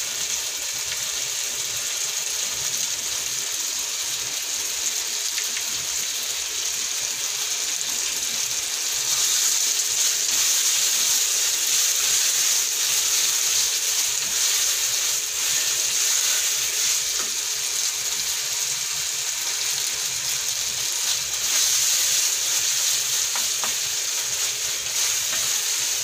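Pork cubes sizzling in tomato paste and tomato sauce in a nonstick wok, stirred with a wooden spatula, as the sauce cooks down before water is added. A steady high sizzle that grows louder about nine seconds in.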